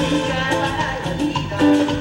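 Latin tropical dance music played by a live band, with a steady percussion beat under pitched melody lines.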